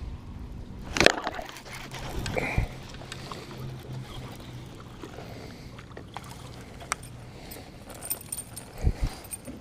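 Spinnerbait fishing from a kayak: a sharp knock about a second in, then water sloshing around the hull and small knocks of tackle while the lure is reeled in.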